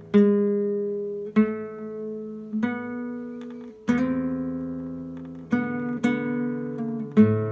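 Classical guitar played solo in a slow piece: a new chord is plucked every second or so and each is left to ring and fade.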